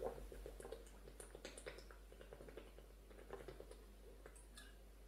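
A person drinking water from a glass bottle: faint swallowing with small clicks, barely above silence.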